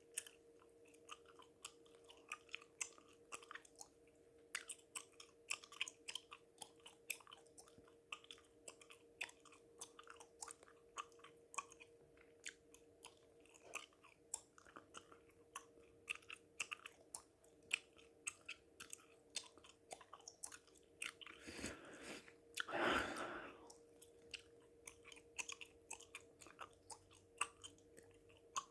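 Close-miked gum chewing: quiet, wet mouth clicks and smacks coming irregularly several times a second. About 22 seconds in comes one heavy, drawn-out breath, the loudest sound here.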